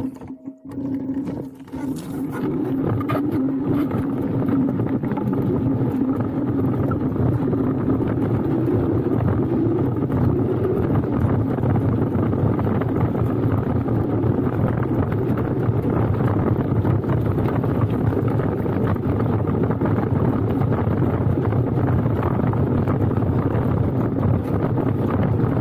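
Laotie ES19 electric scooter riding along a loose gravel trail: a steady rumbling rush of tyres on gravel and wind over the microphone. The noise drops away briefly near the start.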